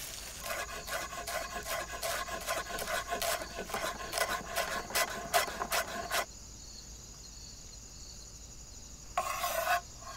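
Large kitchen knife chopping fresh parsley on a wooden cutting board: quick, rhythmic strokes, several a second, that stop about six seconds in. A short rustling burst follows near the end.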